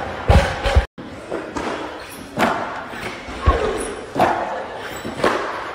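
Loaded barbells with rubber bumper plates landing on lifting platforms: several separate dull thumps about a second apart, the heaviest about three and a half seconds in, over faint voices in a large hall.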